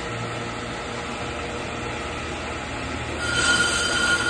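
Bench brake lathe spinning a brake rotor with a steady motor hum; about three seconds in, the cutting bits bite and a loud, high-pitched squeal starts and holds, a squeal that is totally normal while cutting a rotor.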